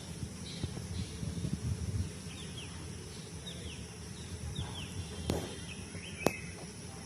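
Outdoor ambience with a small bird chirping: short, falling chirps repeating about once a second. There is low rumbling noise in the first two seconds, and two sharp clicks come about five and six seconds in.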